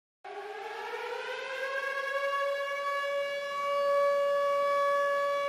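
Air-raid siren winding up. It starts about a quarter second in, rises in pitch over the first two seconds, then holds one steady tone that grows louder.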